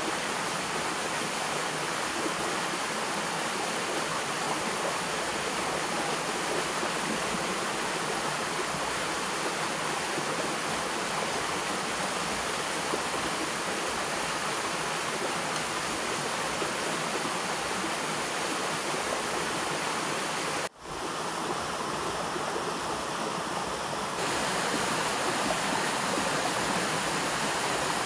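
River water rushing steadily, an even wash of noise. It drops out for an instant at a cut about three-quarters of the way through and comes back slightly louder.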